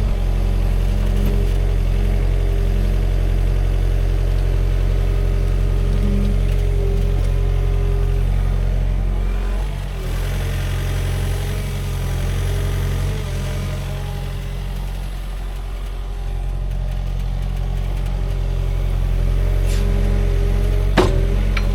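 Sany SY50U mini excavator's diesel engine running steadily under digging work, easing off briefly about halfway through. A sharp knock comes near the end.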